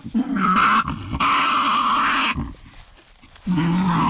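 Young Tasmanian devils screeching and growling as they squabble in their den. There are two long harsh screeches: one through the first two seconds or so, and another starting near the end.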